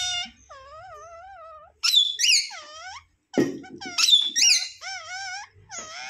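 Pet rose-ringed parakeet calling: a run of high, squeaky, wavering calls and chatter, with a short break about three seconds in.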